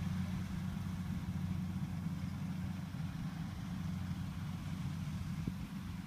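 Rice combine harvester's diesel engine running steadily, a constant low drone.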